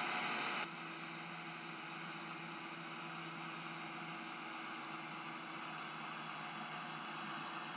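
Model Class 55 Deltic diesel locomotive running slowly along the track: a quiet, steady hum.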